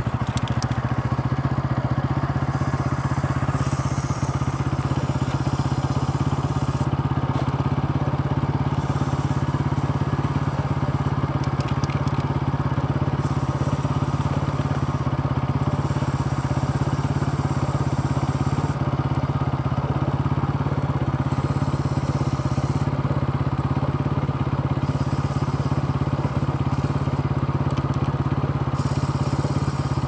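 Bajaj Pulsar NS motorcycle's single-cylinder engine idling steadily, with a high-pitched hiss that starts and stops every few seconds over it.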